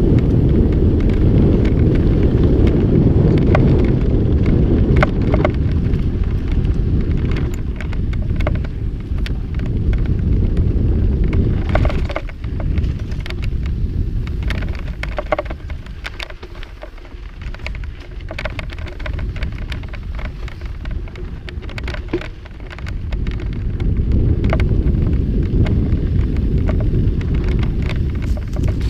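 Wind buffeting the microphone and mountain bike tyres rolling over a rough dirt trail, with many sharp clicks and rattles from the bike. The rush eases off for about ten seconds midway, then builds again.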